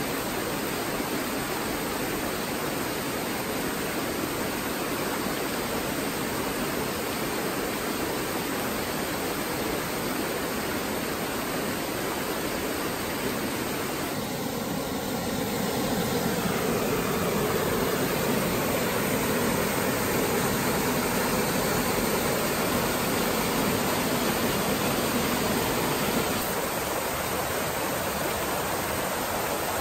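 Small waterfall pouring into a stream pool: a steady rush of falling water that grows somewhat louder for a stretch in the middle.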